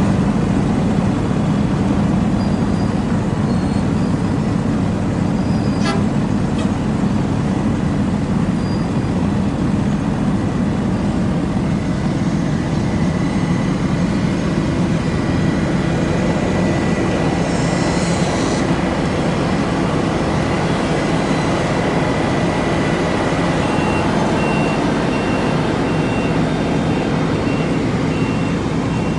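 Roadtec RX-608 cold planer's diesel engine running loud and steady. Near the end a warning alarm starts beeping evenly, about twice a second.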